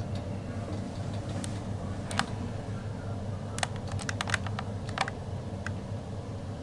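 1970s OTIS lift car travelling upward: a steady low hum with scattered sharp clicks and ticks, a quick cluster of them about four seconds in.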